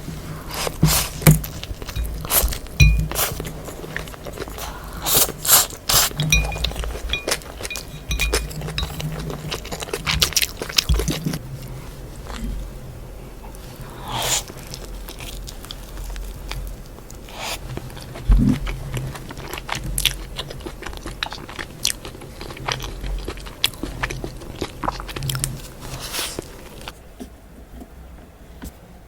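Close-miked eating of Buldak spicy fire noodles: chewing and wet mouth sounds with frequent sharp clicks and scrapes, irregular throughout.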